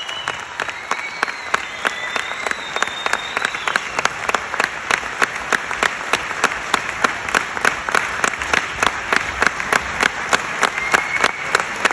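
Concert audience applauding, clapping together in a steady rhythm of about three claps a second.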